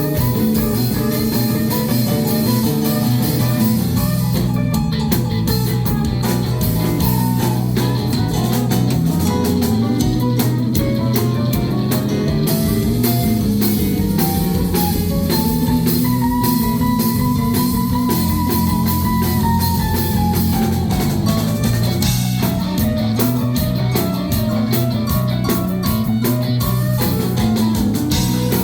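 Live rock band playing an instrumental passage: guitars over bass and drum kit, with a long sustained lead note about two-thirds of the way through.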